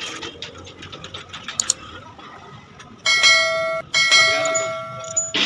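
A bell-like ring sounds twice from about three seconds in: a short ring that breaks off, then a longer one that fades away. Light clicks and clinks come before it.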